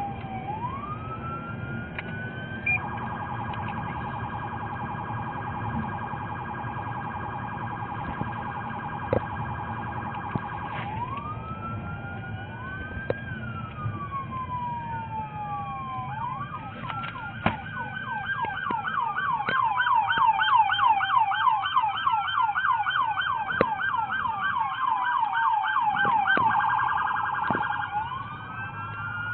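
Police car sirens heard from inside a moving patrol car. A wail rises and falls, then gives way to a steady held tone for several seconds. From about halfway, a fast yelp from more than one siren overlaps the wail and is the loudest part, with road and engine noise underneath.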